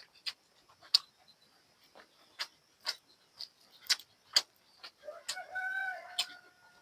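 Close-miked chewing: irregular wet mouth clicks and crunches from eating buffalo curry with rice. About five seconds in, a held pitched sound lasts just over a second.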